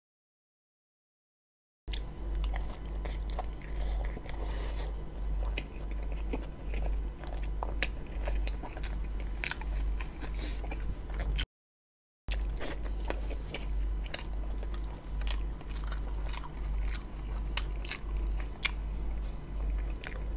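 Close-miked chewing and biting of a toasted, meat-filled roti John bread roll: many short, wet, crackly mouth clicks. The sound cuts to dead silence twice, for about two seconds at the start and briefly around the middle.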